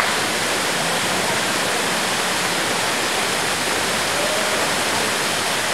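Waterfall pouring into a deep pool, a steady, even rush of falling water.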